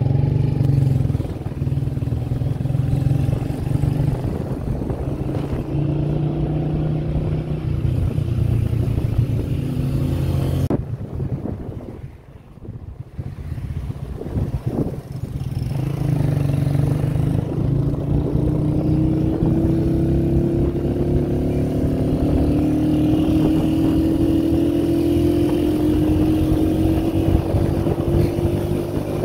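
Motorcycle engine running as the bike is ridden. It drops away and quietens for a few seconds about twelve seconds in, then the bike pulls away and the engine note rises steadily as it gathers speed.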